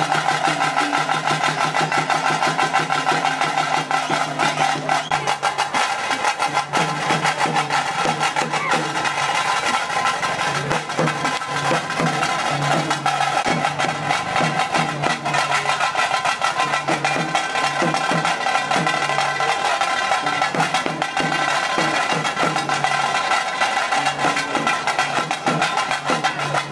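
Fast, continuous stick-played drumming, the kind of beat that accompanies tiger dancers, with sustained pitched notes held over the strikes.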